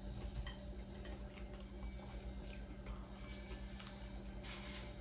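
Close-miked eating of Chick-fil-A waffle fries: small mouth clicks and wet smacks of biting and chewing, scattered through and busiest near the end, over a low steady hum.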